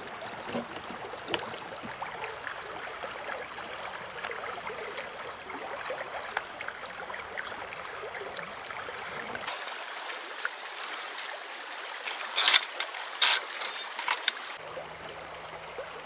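Shallow taiga river running over riffles, a steady rush of water, with a few sharp clicks and knocks a little after the middle.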